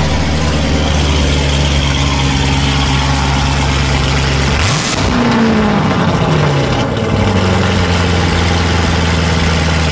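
Chevrolet Corvette C7's V8 idling with a low, steady note. About five seconds in it is blipped once: the revs jump up sharply, then fall back to idle over a second or two.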